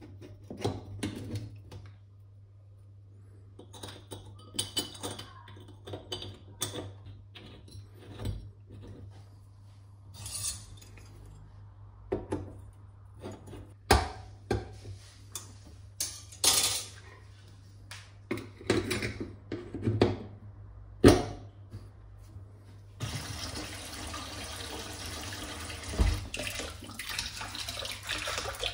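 Metal clicks, knocks and scrapes as a stainless steel sink strainer is seated in the drain and worked into place with a hand tool. For the last several seconds the tap runs steadily into the stainless steel basin, which fills and holds the water.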